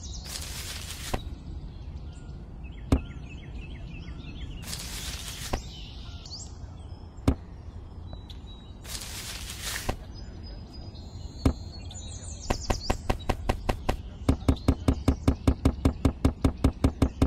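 Three short hissing bursts and a few scattered single knocks, then a fast, regular tapping, about five knocks a second, over the last few seconds.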